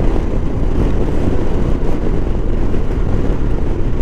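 Motorcycle cruising at road speed: a steady low rumble of engine, wind and road noise that holds even throughout.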